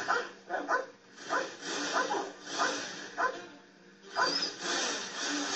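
German Shepherd barking, about seven short, sharp barks unevenly spaced over the first four seconds, heard from a film soundtrack played on a TV and picked up off its speaker.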